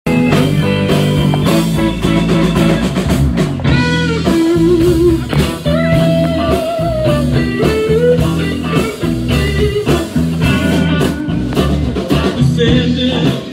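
A live blues band playing an instrumental intro: electric guitars, bass, drums and keyboard, with a lead line of held notes that waver in pitch.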